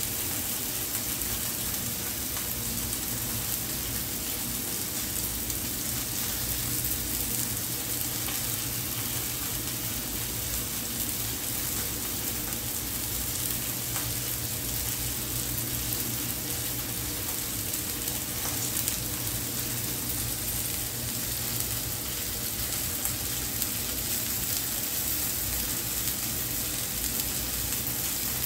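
Chicken pieces sizzling steadily on the hot ribbed plate of a Kenwood electric indoor grill.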